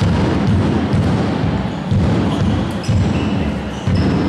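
Handball game play on a sports hall floor: repeated thuds of the ball and players' feet with a heavy hall echo, and a few short high squeaks near the middle.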